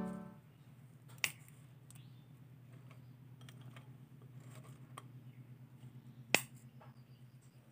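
Crisp fried banana chips being handled and snapped, giving two sharp cracks, about a second in and near the end, with faint light clicking between them over a low steady hum. Piano music dies away at the very start.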